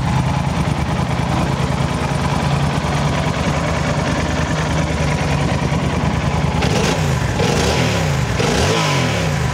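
2012 Yamaha Super Tenere's 1200cc parallel-twin engine idling smoothly, then revved up and let fall back about three times near the end. It revs cleanly.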